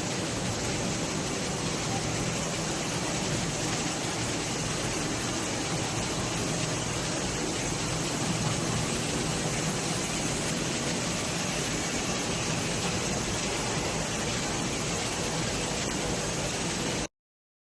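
HRSK-1300 macro-perforation machine for bag film running with a steady mechanical noise and low hum; it cuts off suddenly near the end.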